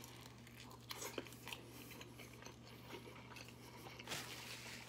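A man biting into and chewing a large flour-tortilla burrito stuffed with meat and rice. The chewing is faint, with a few small clicks.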